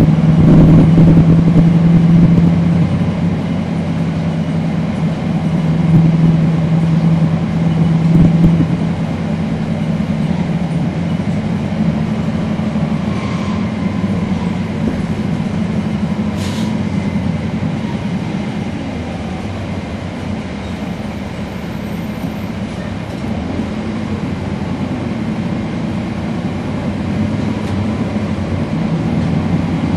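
2012 NABI 416.15 transit bus's Cummins ISL9 diesel engine running as the bus travels: a steady drone that is louder for the first eight or nine seconds, then eases to a lower, even level.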